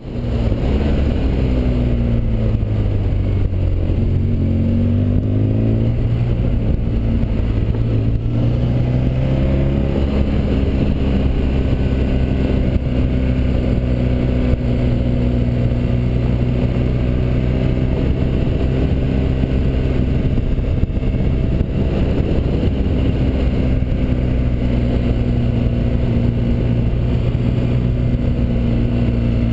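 Motorcycle engine running while ridden, its pitch falling and rising a few times in the first ten seconds, then holding steady.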